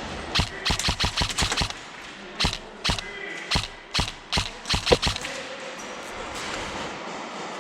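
Airsoft guns firing: a quick string of sharp shots in the first couple of seconds, then single shots about every half second until about five seconds in.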